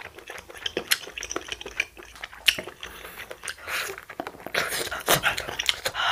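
Eating sounds of someone biting into a grilled, juice-filled sausage and chewing it: a run of short, sharp clicks and wet crackles that grow denser about four and a half seconds in.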